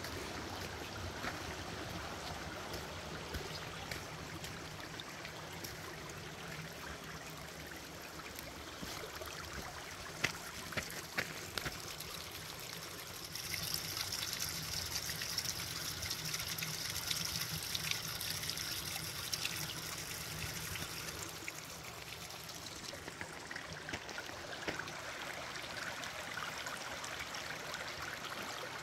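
Creek water running and splashing in a steady rush, growing louder and brighter about halfway through.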